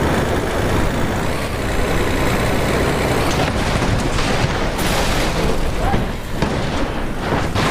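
Loud, steady, pitchless heavy-engine noise, a truck engine running, with no speech or music over it.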